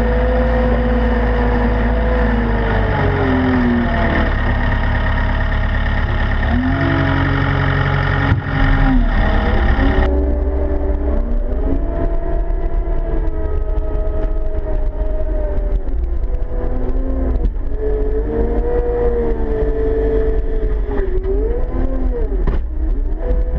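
A Caterpillar 299D XHP compact track loader running and driving, its diesel engine and drive rising and falling in pitch as the machine moves. It is heard first from under the machine between the tracks, and from about ten seconds in from inside the cab, where it sounds duller.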